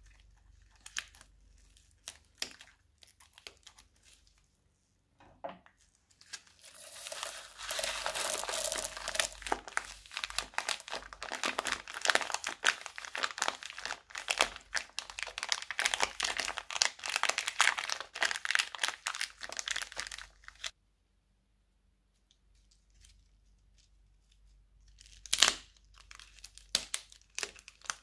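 A few scissor snips through a plastic piping bag, then about fourteen seconds of dense plastic crinkling and rustling as the bag is squeezed and its beads, sprinkles and pom-poms are emptied out. Near the end come more sharp scissor snips into a second bag.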